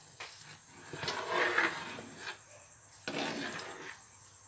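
Metal ladle stirring a thick corn-and-milk mixture in a metal wok, in two spells of stirring noise, about a second in and again about three seconds in.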